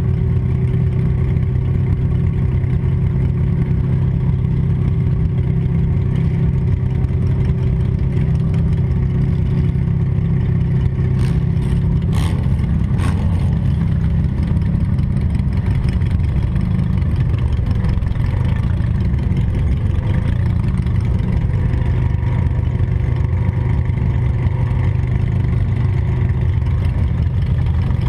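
Demolition derby car's engine running loud and steady, with a few sharp knocks a little before the middle.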